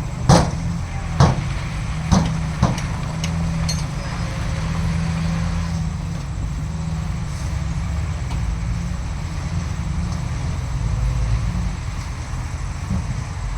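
Heavy diesel earthmoving machinery running steadily with a low rumble, with four sharp clanks in the first three seconds.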